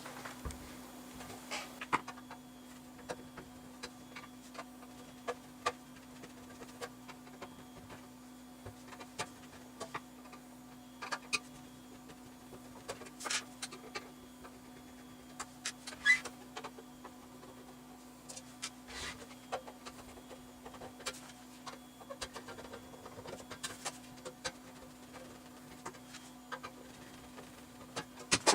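Scattered clicks and light metallic taps of a bench power supply's screws and sheet-metal case being worked open, over a steady low hum.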